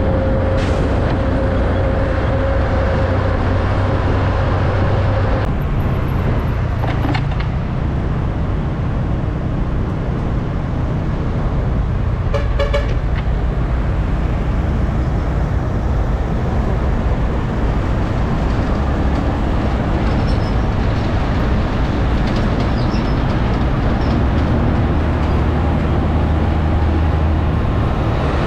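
Container semi-trucks and road traffic passing close by: steady diesel engine rumble and tyre noise. A short vehicle horn toot sounds about halfway through.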